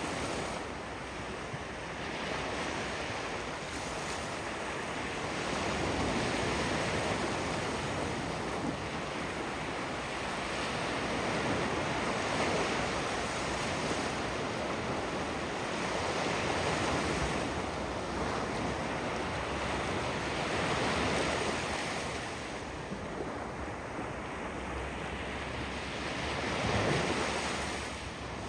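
Ocean waves breaking and washing on the shore, swelling and easing every few seconds, with wind buffeting the microphone.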